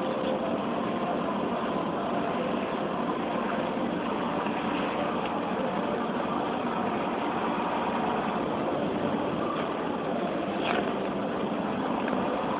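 Steady background hum that holds at one level throughout, with one faint click about ten and a half seconds in.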